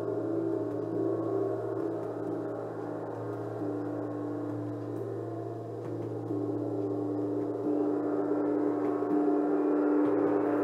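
Gongs ringing in a sustained, layered wash of tones, dipping a little in the middle and swelling again in the second half.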